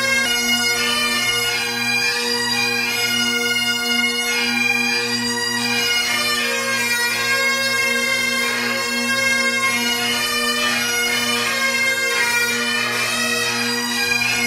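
Great Highland bagpipes playing a tune: steady drones held throughout under a shifting chanter melody.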